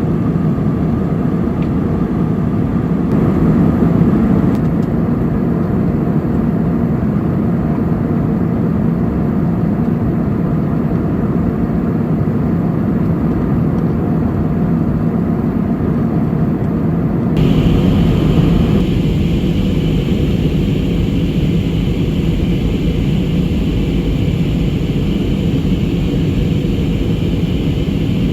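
Steady roar of engines and rushing air inside a passenger aircraft cabin in flight. The tone changes abruptly about 17 seconds in, turning brighter and hissier.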